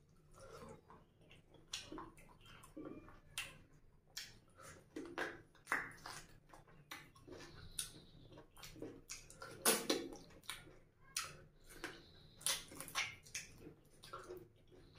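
Close-miked eating: chewing and lip-smacking of mouthfuls of rice and curry eaten by hand, an irregular run of wet clicks and smacks.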